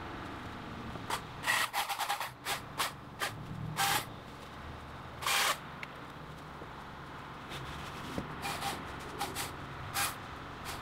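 Husqvarna electric chainsaw run in a dozen or so short bursts as small branches are cut off a fallen tree, with a pause in the middle.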